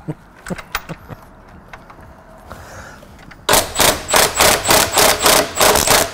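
A few light clicks and knocks of tools being handled, then, about halfway through, a compact cordless impact wrench hammering loudly in short rattling bursts, about three or four a second, as it drives a bolt on the caravan's chassis.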